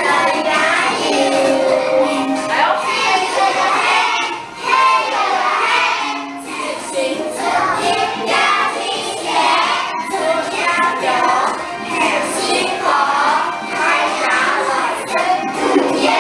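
Children singing a Dragon Boat Festival song along with recorded backing music.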